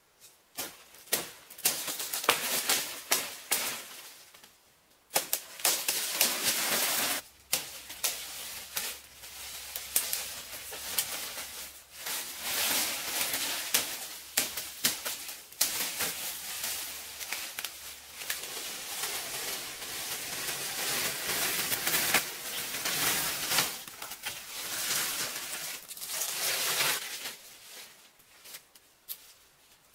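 Large palm fronds and dry leaf litter rustling and crackling as the fronds are cut and dragged through undergrowth, with many sharp snaps and cracks of stems. The sound comes in stretches with a few short pauses.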